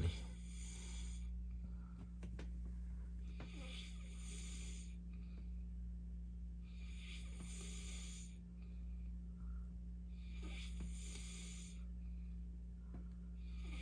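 A man snoring heavily in deep sleep, with a strong, rasping breath about every three and a half seconds, five times. A steady low hum runs underneath.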